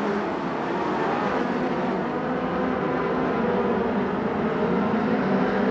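Four-cylinder engines of several USAC midget race cars running hard together on a dirt oval, a steady overlapping engine note.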